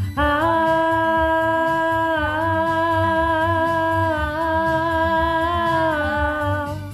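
A girl sings one long held note of about six seconds, wavering briefly twice, over a backing track with a steady beat.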